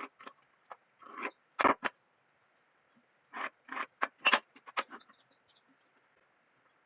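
A series of short knocks and scrapes, as of objects being handled and set down: a few in the first two seconds and a louder run of about six in the middle, over a faint steady chirring of insects.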